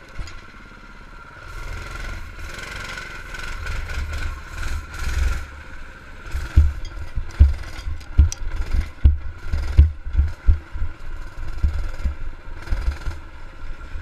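Doodle Bug mini bike's small four-stroke engine running under throttle, its tone rising over the first few seconds. From about the middle on, heavy irregular thumps and jolts, the loudest sounds here, come as the bike bounces across rough lawn.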